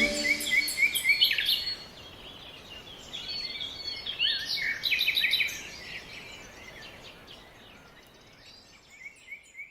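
Rainforest birds calling: a run of short rising chirps, then a busy stretch of sweeping whistled notes in the middle that fades away, with another short run of rising notes near the end.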